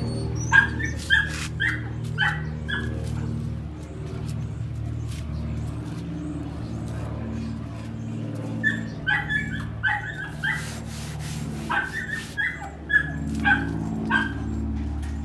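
A dog barking in two runs of quick, high yaps, the first in the opening few seconds and the second from about halfway to near the end, over a steady low hum.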